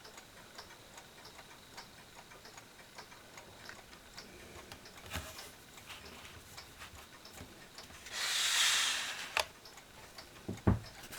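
Mechanical mantel clock ticking steadily. About eight seconds in there is a brief rushing hiss lasting about a second, and near the end a low knock.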